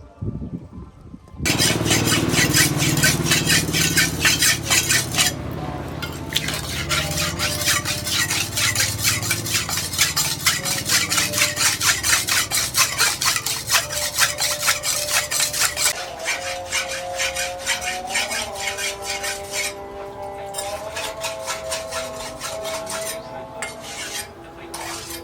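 Rapid, rhythmic metal scraping strokes from work on the machete blade, growing weaker about two-thirds of the way through.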